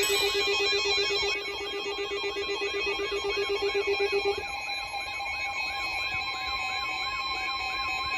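Several emergency alert devices sounding at once to herald a tornado warning: a siren-like tone sweeping up and down about three times a second, a rapidly pulsing low ring that stops about halfway, and high steady beeping tones.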